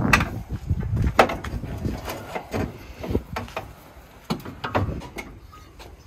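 A string of about ten irregular knocks and clunks from tools and metal car parts being worked on, getting fainter toward the end.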